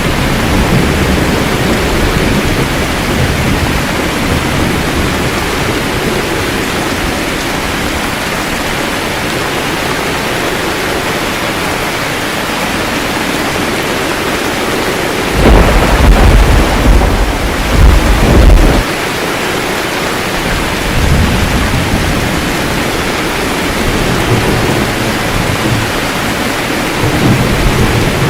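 Steady heavy rain with rolling thunder: a loud deep rumble of thunder about halfway through, lasting a few seconds, and softer rumbles near the end.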